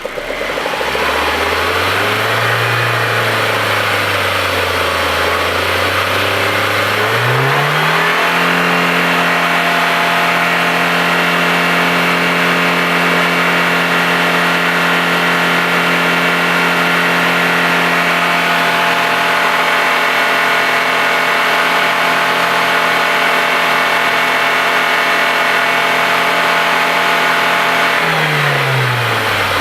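Audi A4's 1.8T turbocharged four-cylinder engine being revved. It blips up and back down in the first few seconds, then climbs about seven seconds in and is held at steady high revs for about twenty seconds before dropping back near the end.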